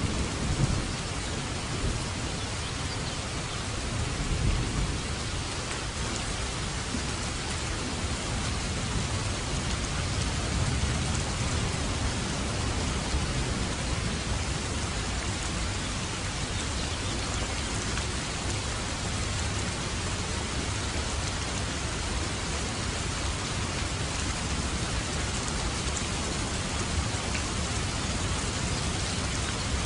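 Rain falling steadily, with low rumbles of thunder in the first few seconds.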